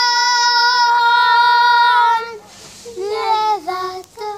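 Young girls singing: a long held note for about two seconds, then a short phrase with sliding pitch.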